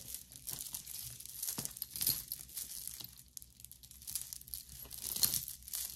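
Packaging crinkling and rustling in irregular crackles as jewelry is unpacked by hand.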